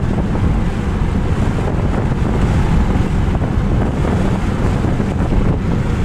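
Wind buffeting a phone's microphone inside a moving car on the freeway: a loud, steady rumble.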